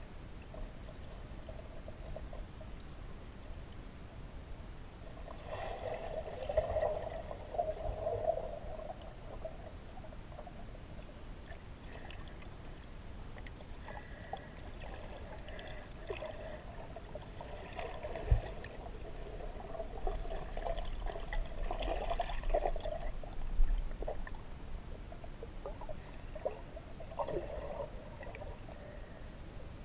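River water heard from under the surface through a camera's waterproof housing: a steady low rush with gurgling swells that come and go, and a sharp knock about 18 seconds in.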